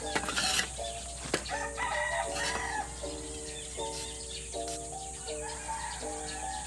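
A hoe scrapes through ash and clacks against fired clay bricks near the start. Then a simple background-music melody plays in held notes, with a rooster crowing about a second and a half in.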